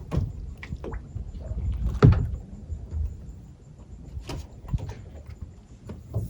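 Boats being handled at a lagoon landing: scattered hollow knocks, the loudest about two seconds in, over a low uneven rumble.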